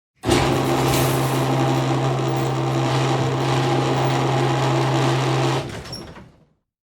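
Electric garage door opener motor running as the door travels: a steady hum that starts abruptly, holds for about five seconds, then stops and fades out.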